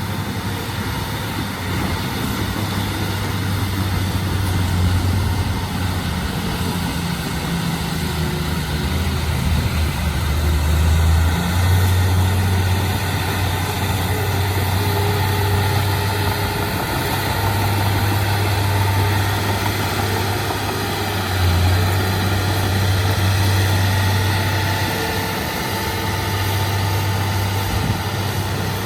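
Diesel engine of a D31P crawler bulldozer running steadily with a low hum that swells and eases as the load changes, louder about a third of the way in and again past two-thirds.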